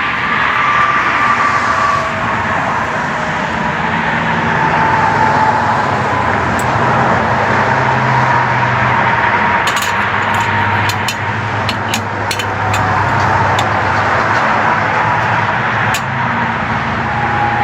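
Car running, with steady engine and road noise, and a run of sharp clicks about ten to sixteen seconds in.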